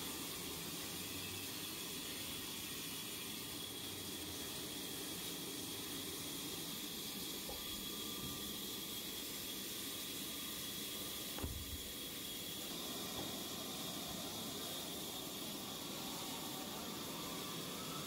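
Large sawmill band saw running and cutting through timber: a steady hiss with a thin, high, steady whine. A single knock about eleven seconds in.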